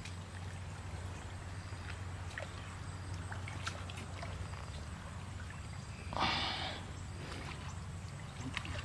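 Hands and legs working in shallow muddy water: small splashes, sloshing and squelches, over a steady low hum. About six seconds in comes one louder, short rush of noise.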